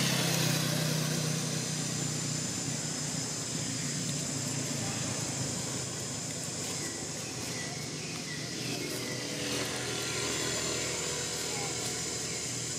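A motor vehicle's engine passing on a nearby road, loudest at the start and fading away over the first couple of seconds, then steady outdoor background with faint distant voices.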